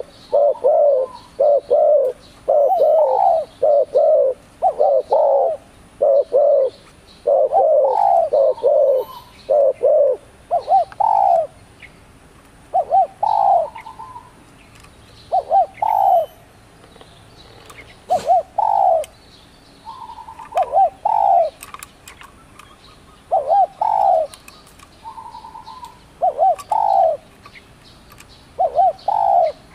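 Spotted dove cooing: short repeated coo phrases, coming close together at first and then spaced out with gaps of a second or more, with faint high chirps of other birds behind.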